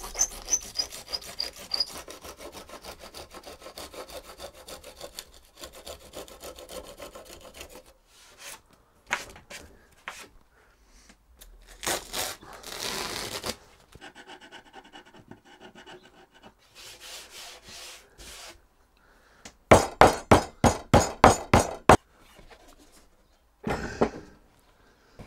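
Hand sanding the edge of a lightweight plywood board with a sanding block: rubbing strokes, loudest in a quick run of about eight back-and-forth strokes near the end. Early on there is light rapid clicking while a ratchet strap is worked.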